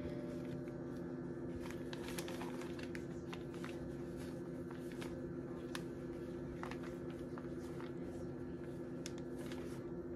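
Steady low hum in the room, with scattered soft rustles, crinkles and clicks of a plastic zip-top bag and gloved hands handling egg-dipped shrimp and flour.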